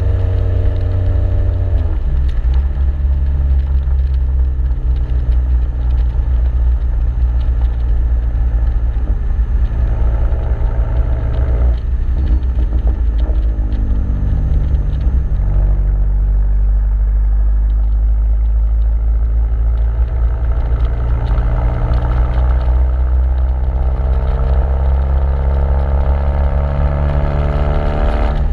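Exhaust note of a 2009 Chevrolet Cobalt SS's turbocharged 2.0-litre four-cylinder through a TurboXS RFL exhaust and catless downpipe, heard from outside the moving car. The note drops in pitch about two seconds in and again around the middle, then rises steadily through the last third as the car accelerates.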